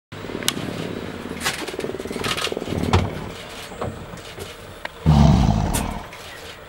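Lion growling in a rough, pulsing rumble, then a loud deep grunt about five seconds in that fades within a second.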